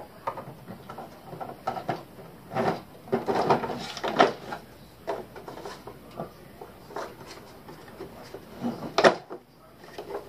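3D-printed plastic dump bucket being set onto an RC tracked chassis and clipped in place: a run of irregular plastic knocks, rubs and clicks, and one sharp loud snap near the end as a locking clip engages.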